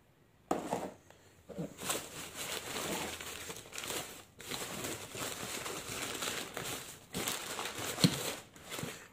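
Crumpled packing paper rustling and crinkling as it is handled, with a sharp click near the end.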